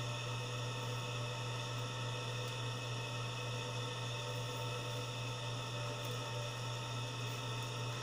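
Steady low electrical mains hum with a few faint steady high whines above it, unchanging throughout.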